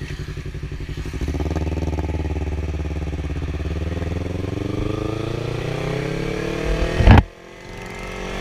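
Yamaha R3 motorcycle's parallel-twin engine pulling away from a lumpy idle, its pitch rising steadily as it accelerates. About seven seconds in there is a loud short burst and the engine note cuts off abruptly.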